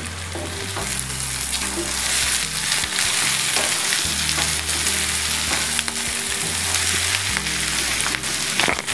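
Bitter gourd, sliced onions and green chillies sizzling in hot oil in a kadhai while being stirred and turned with a wooden spatula, a continuous hiss of frying.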